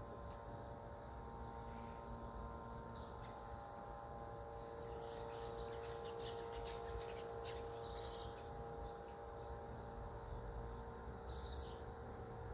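Outdoor ambience: insects trilling steadily, with short runs of bird chirps in the middle and again near the end, over a faint low hum.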